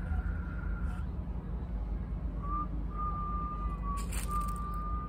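Steady low rumble of city traffic, with a faint high held whistle-like tone at the start and again from about halfway on, and a short crackle about four seconds in.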